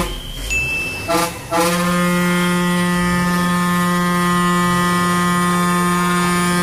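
A loud, steady, low horn blast held at one unchanging pitch. It breaks off briefly near the start, with a short thin whistle in the gap, then sounds again without a break.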